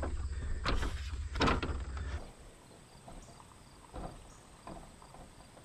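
Sharp clunks and knocks of a ladder against a corrugated steel roof, handled close to the microphone over a low rumble. About two seconds in it drops to quiet, with a few faint taps of feet on ladder rungs.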